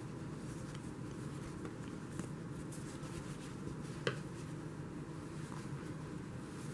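Faint rustling of a crochet hook working single crochet stitches through super bulky yarn, over a steady low room hum, with a small click about four seconds in.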